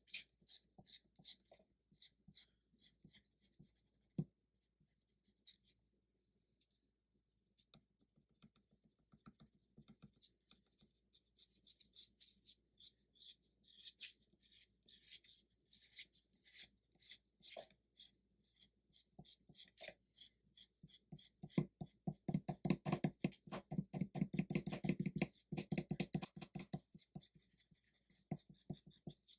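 Quick, repeated rubbing strokes on card paper as its edge is lightly worked over. The strokes are faint and sparse at first and grow denser and heavier in the last few seconds.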